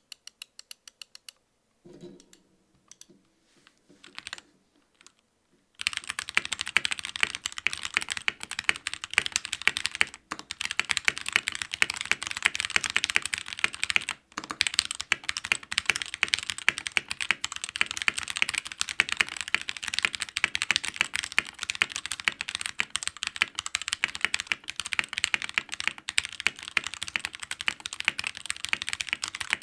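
Royal Kludge RK61 mechanical keyboard with spray-lubed Gateron Red linear switches being typed on, on a desk mat. It opens with a quick run of key presses and a few scattered ones, then from about six seconds in there is continuous fast typing, broken by short pauses near ten and fourteen seconds.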